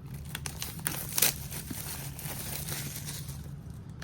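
Trading card box packaging being handled and opened: crinkling and rustling, with a sharper crackle about a second in, over a steady low hum.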